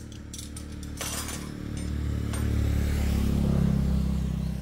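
A low engine hum that grows louder over a couple of seconds and then fades away, with a short click about a second in.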